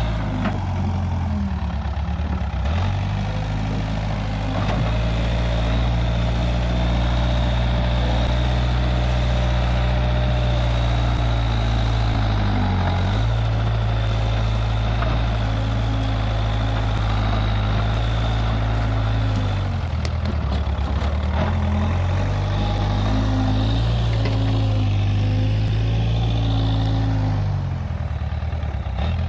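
Case 580G backhoe loader's engine running steadily. Its note sags briefly several times, about three seconds in, near the middle, around two-thirds of the way through and near the end.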